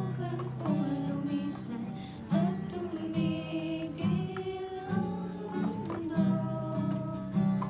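Acoustic guitar strummed as accompaniment, with voices singing along.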